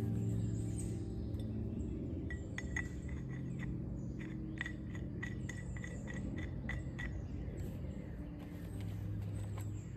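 Light metallic clinking, about a dozen quick clinks each with a short ring, from small metal trellis parts being handled and knocked together during assembly.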